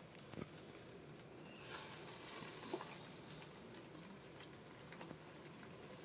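Quiet outdoor ambience: a faint steady high-pitched hum with a few soft ticks and rustles scattered through it.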